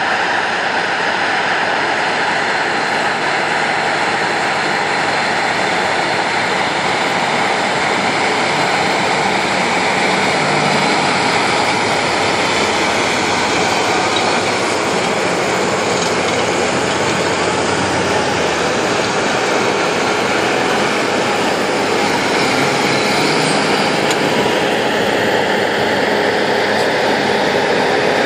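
Large farm tractors working a field under load, pulling tillage implements through the soil: a steady, loud mix of diesel engine running and implement noise.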